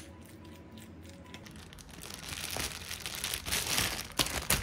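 Plastic crinkling and rustling that starts about two seconds in, with a few sharp clicks near the end.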